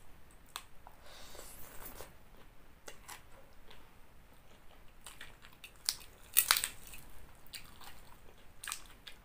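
Close-up mouth sounds of a person chewing and biting green papaya salad and stir-fried noodles: soft wet smacks and crunches. A few louder crunchy bites come a little past halfway.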